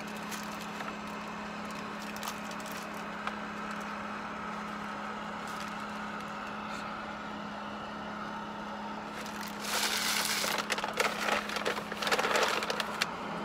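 Steady hum inside a car. Then, about ten seconds in, a few seconds of loud, irregular crinkling and crackling close to the microphone as fast-food paper packaging is handled.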